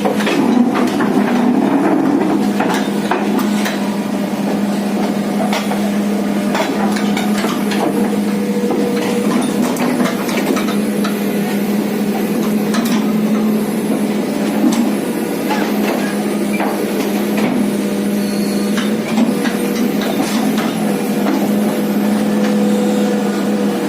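Excavator's diesel engine running at a steady speed, with repeated sharp metal clanks and knocks scattered throughout.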